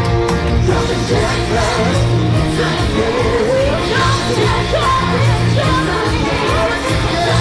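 Loud rock music with a steady heavy beat and a singing voice that comes in about a second and a half in.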